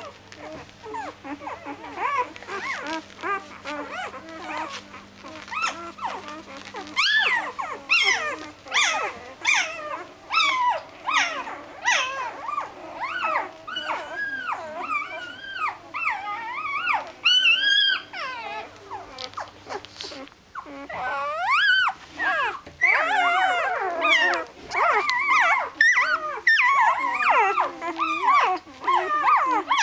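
A litter of young Doberman puppies whining and squealing, many short cries rising and falling in pitch and overlapping one another. The crying grows louder and almost constant about two-thirds of the way through.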